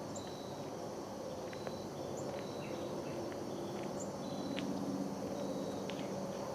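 Steady insect chorus, with short high chirps repeating about every second over a constant background hum.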